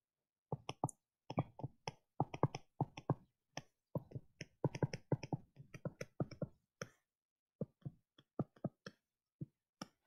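A stylus tapping on a touchscreen with each handwritten stroke: many short, irregular taps, several a second, thinning out over the last few seconds.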